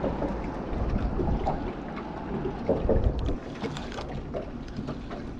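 Low wind rumble on the microphone over water lapping at a small boat's hull, with a few light clicks from handling the fishing rod; the rumble eases about three seconds in.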